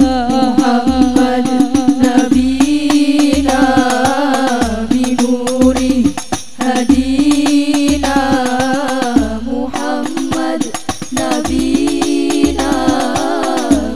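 Sholawat devotional song: young women's voices singing a long, ornamented melody together into microphones, accompanied by rebana frame drums with a deep beat about once a second.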